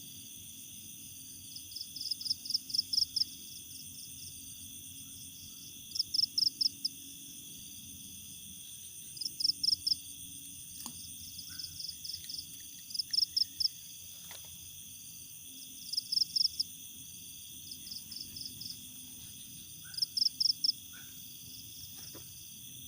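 Night insects calling: a steady high-pitched trilling, with a louder call of five or six quick chirps repeating about every three to four seconds.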